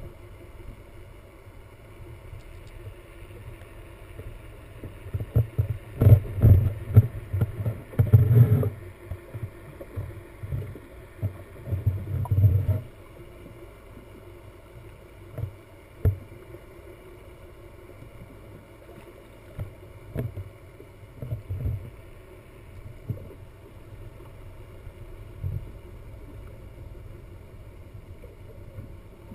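Muffled underwater sound picked up through an action camera's housing: bursts of low thumping and rushing water in the first half, then a few single knocks over a steady low hum.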